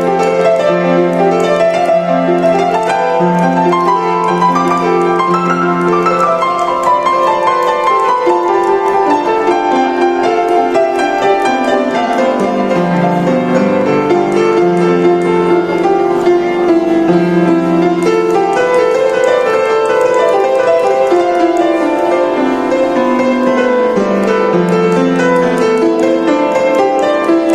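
Upright piano played with both hands: a flowing melody over a moving bass line that sinks to its lowest notes about halfway through, then climbs again.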